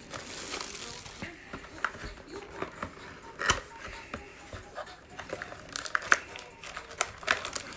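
Hands opening a cardboard trading-card hobby box and handling the foil-wrapped card packs inside: irregular crinkling and rustling with sharp little clicks and taps of cardboard, one louder snap near the middle.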